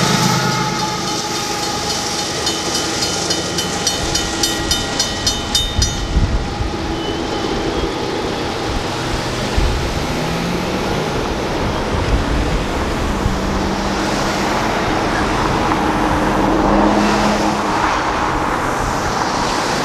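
The tail end of a Union Pacific intermodal stack train, led out by its rear distributed-power diesel locomotives, passes while the grade-crossing bells ring about two or three times a second. The bells stop about six seconds in, and road traffic then starts passing over the crossing.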